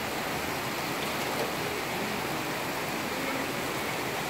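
Heavy rain falling steadily on leaves, ground and paving, an even hiss with no break.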